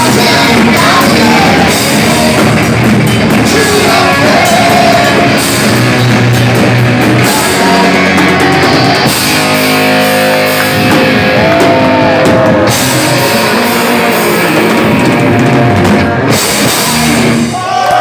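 Heavy metal band playing live and loud: distorted electric guitars carrying melodic lead lines over a pounding drum kit and cymbals.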